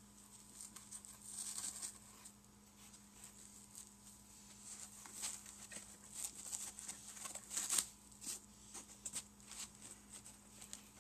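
Packing foam rubbing and scratching as small 3D-printed plastic model parts are worked out of their foam cut-outs by hand: a run of short scratchy rustles and light clicks, loudest about eight seconds in.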